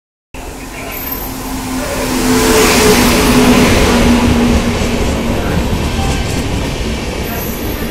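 Indian Railways superfast express running through the platform at speed: the rumble swells as the locomotive passes, then settles into the steady rumble of the LHB coaches' wheels on the rails.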